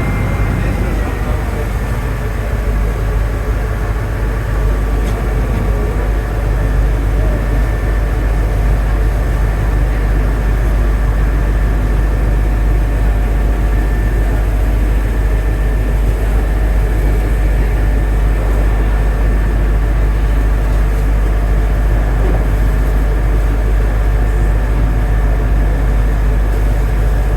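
Boat engine running steadily, heard on board: a deep drone with a whine that drops in pitch about a second in, then holds.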